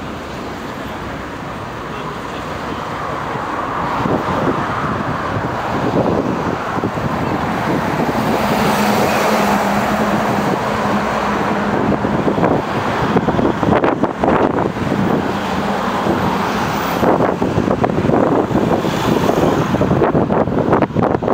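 City street traffic running alongside, with wind rushing over the microphone as the bicycle moves. The noise grows louder over the first several seconds, and in the second half it breaks into gusty buffets of wind on the microphone.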